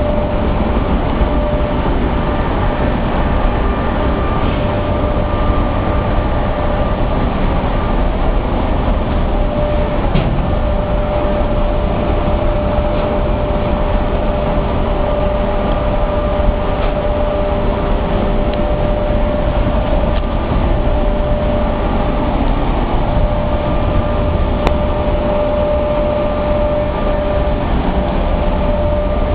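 Pulp-mill machinery, centrifugal pumps and their electric motors, running continuously: a loud, even mechanical drone with a steady tone running through it.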